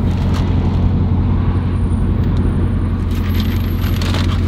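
A Dodge car's engine running steadily at low speed, heard from inside the cabin as the car is parked, with a few light clicks near the end.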